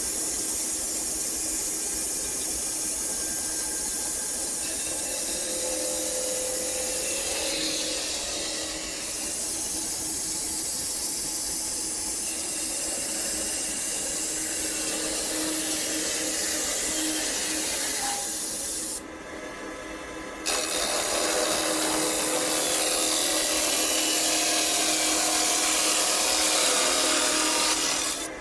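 Handheld angle grinder running on steel: a steady, loud, hissing grind with a motor whine under it, easing off for a moment and stopping briefly about two-thirds through before starting again.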